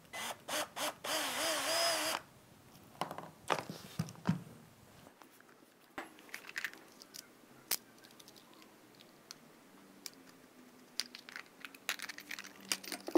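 Cordless drill with a 2.5 mm bit drilling into a plastic clothespin: a few short trigger blips, then about a second of steady drilling, the motor's pitch wavering under load. After that, scattered clicks and knocks of tools and small parts being handled, busiest near the end.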